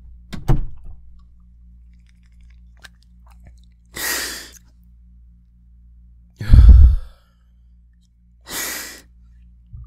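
Two hissing puffs of an asthma inhaler, about four seconds apart, with a loud, heavy breath into the microphone between them. A short thump comes near the start.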